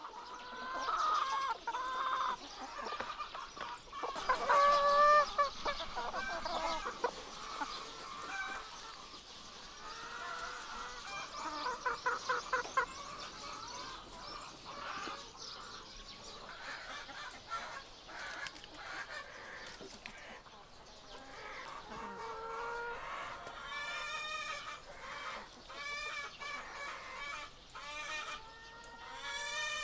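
A flock of hens clucking and calling, many short calls overlapping, loudest about four to five seconds in, with a quick run of short calls near the middle and repeated calls near the end.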